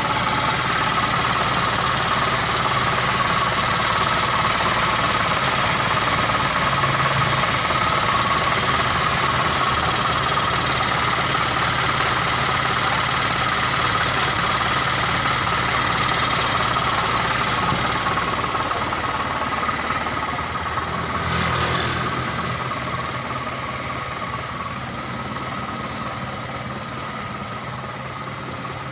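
Diesel engine of a 2001 Mitsubishi Colt Diesel truck running steadily. There is a brief swell about 21 seconds in, after which it grows gradually quieter.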